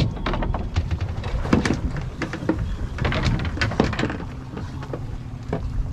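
Scattered sharp knocks and clicks of a freshly landed fish being grabbed and handled against a fiberglass boat deck and gunwale, over the low steady hum of the boat's idling engine.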